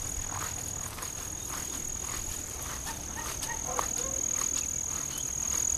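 Insect chirring outdoors: one steady high-pitched whine held throughout, with faint scattered taps underneath.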